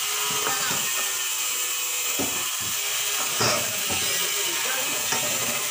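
Knife cutting and scraping raw pork on a plastic cutting board, with a few short knocks about two and three and a half seconds in, over a steady hiss.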